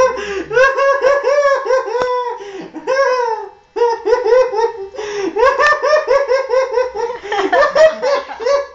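A man laughing hysterically in long runs of rapid, high-pitched 'ha' pulses. He breaks off for a moment about three and a half seconds in, then carries on laughing.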